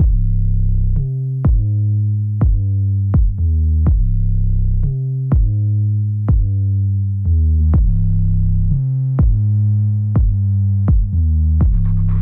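Electronic background music: a steady drum-machine beat, about two hits a second, over a deep synthesizer bass line.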